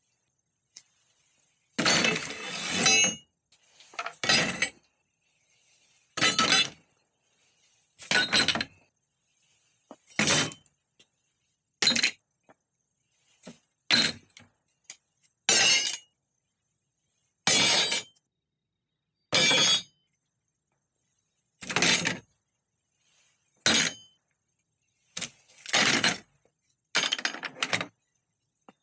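Repeated sharp metal-on-metal strikes, each ringing briefly, about one every two seconds, from tools knocking on the bare bicycle frame as the cantilever bosses are worked out.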